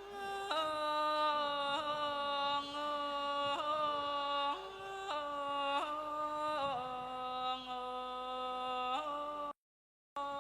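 Thai classical music: a single melody line of long held notes that step up and down in pitch, bright and reedy or voice-like, with no struck-bar notes heard. The sound cuts out completely for about half a second near the end.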